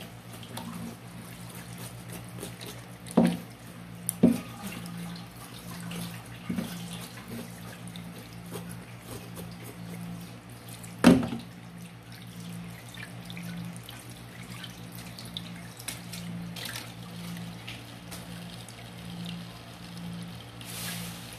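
Kitchen tap running into a stainless steel sink while a knife and a plate are washed under it, with sharp clattering knocks about three, four and eleven seconds in.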